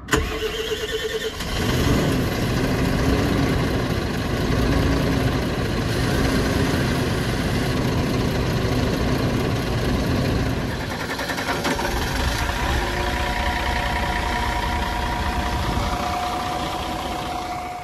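Bus diesel engine being started: the starter cranks with a whine for about a second and a half, then the engine catches and settles into a steady idle.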